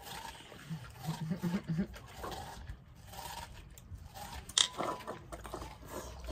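Labradors crunching and chewing watermelon slices, the rind scraping on the tile paving. A few short, low hum-like sounds come about a second in, and there is a sharp knock just past the middle.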